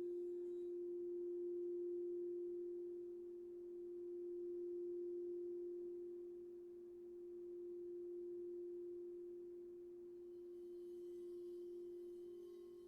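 Singing bowl sounding one sustained, pure tone that swells and eases slowly every few seconds, with faint higher ringing coming in near the end.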